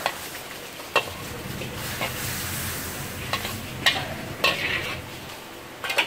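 Metal spatula stirring and scraping in a steel wok while food sizzles in the hot oil, with several sharp clanks as the spatula strikes the wok.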